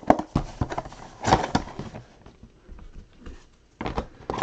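Small cardboard trading-card boxes and plastic card cases being handled and set down on a table, giving a series of light knocks and clicks. The knocks come in clusters: one right at the start, one about a second and a half in, and one near the end.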